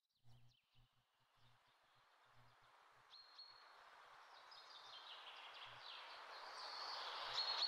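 Outdoor nature ambience fading in: a steady hiss with birds chirping, growing steadily louder.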